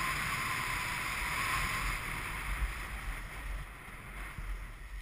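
Skis running over hard, frozen corduroy snow, with wind rushing past, as a steady hiss and scrape. The noise grows quieter toward the end as the skier slows down.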